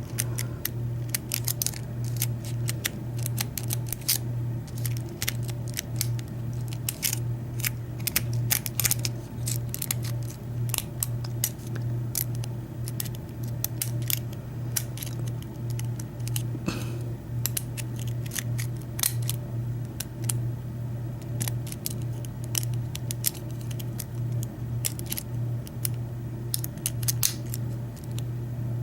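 Lock pick and tension wrench working the pin stacks of a six-pin Schlage-keyway KIK cylinder: a long run of small, irregular metallic clicks and scrapes over a steady low hum.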